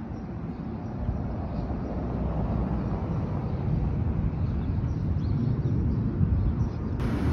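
Outdoor city ambience: a low, uneven rumble with no clear tones or strikes, growing louder over the first couple of seconds and then holding steady.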